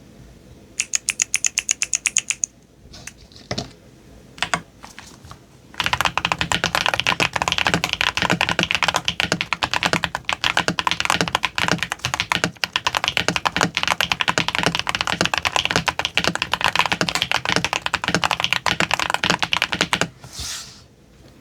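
Keystrokes on an RK98 mechanical keyboard with Gateron Quinn tactile switches: a quick run of rapid repeated presses, a few single presses, then fast continuous typing for about fourteen seconds. It ends with a short soft swish.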